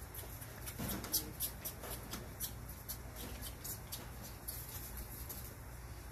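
Whitetail fawns feeding from milk bottles held in a wooden rack: irregular sharp clicks and smacks, several a second, over a steady low hum.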